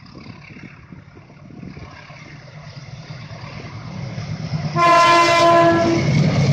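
CC 201 diesel-electric locomotive approaching, its engine rumble growing louder, then one horn blast about a second long near the end: the Semboyan 35 horn signal. The engine runs on loudly as it draws close.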